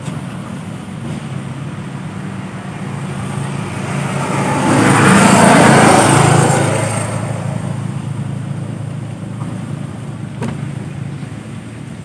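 A road vehicle passing by, its noise swelling to a peak around the middle and then fading away, over a steady low hum. A single sharp click comes near the end.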